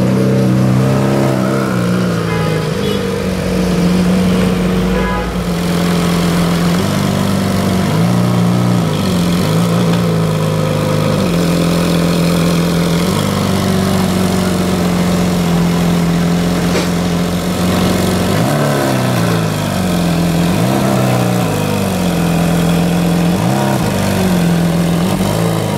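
Lamborghini Centenario's naturally aspirated V12 idling steadily, with several short throttle blips that swing the pitch up and back down.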